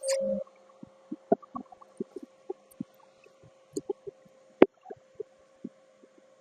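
Scattered light clicks and knocks of tools and parts being handled, with one sharper knock near the middle, over a faint steady hum.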